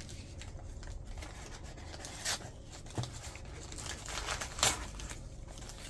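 Packaging being handled: a few soft rustles and sharp clicks, spaced a second or so apart.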